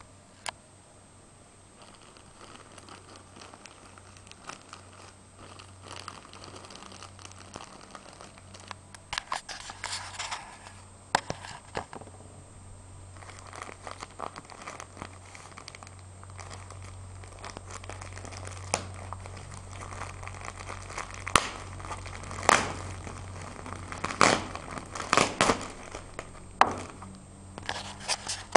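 Packaging crinkling and rustling as it is handled and opened, with many sharp crackles. It gets busier about a third of the way in and is loudest near the end.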